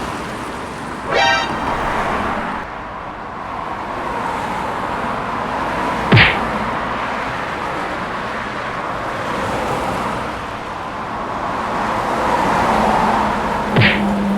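Steady motor-vehicle running noise with a short horn toot about a second in, and two sharp clicks, one near the middle and one near the end.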